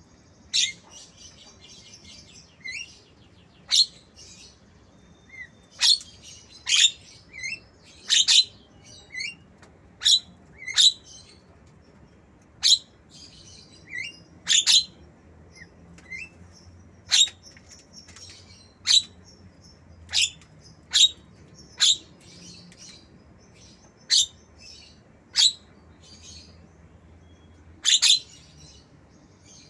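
Caged Javan myna giving short, sharp, high-pitched calls about once a second, sometimes two in quick succession, with softer chattering in the first few seconds. The calls are the myna's imitation of a lovebird's calls.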